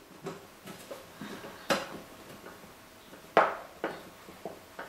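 Light metal clicks and knocks from hand assembly with a screwdriver, as a stepper motor bracket is screwed down with T-nuts onto an aluminium extrusion frame. Two louder knocks stand out, one a little under two seconds in and one about three and a half seconds in.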